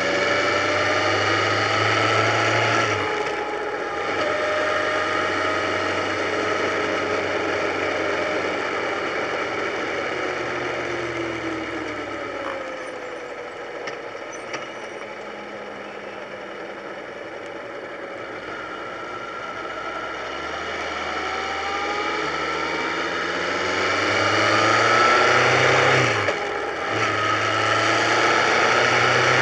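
Motorcycle engine pulling on the road under wind noise, its pitch climbing as it accelerates, with short breaks for gear changes about three seconds in and again near the end. In the middle it eases off and quietens, then picks up and climbs again.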